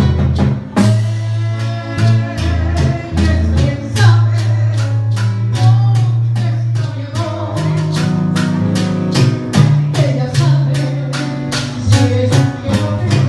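Live band music with a steady beat: strong bass, drums and percussion, with guitar and a voice singing at times.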